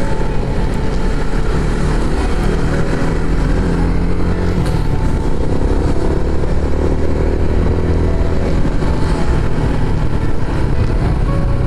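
Motorcycle engine running while riding, its note stepping up and down a little with the throttle, over steady wind and road noise on the camera microphone.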